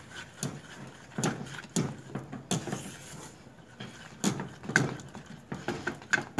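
Silicone spatula stirring a thick mixture of condensed milk, margarine and chocolate powder in an aluminium saucepan: short wet scraping and squelching strokes, irregular at about two a second.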